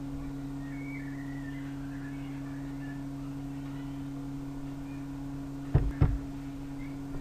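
Steady low electrical hum of room tone, with two sharp clicks a quarter of a second apart near the end.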